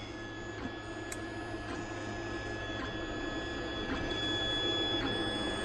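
Anet A8 Plus 3D printer running a print: a steady whine from its stepper motors over fan noise, with a few faint ticks.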